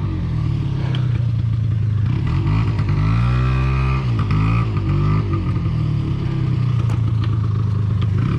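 ATV engine revving hard in repeated surges, its pitch rising and falling as the rider pushes it to break free of the mud, with a few sharp clatters from the machine.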